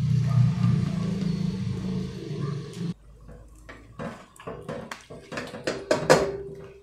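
A low steady rumble for the first three seconds that cuts off suddenly, then a plastic skimmer knocking and clinking against an enamel pot and a ceramic bowl as boiled tomatoes and chiles are lifted out. The loudest clink comes about six seconds in and rings briefly.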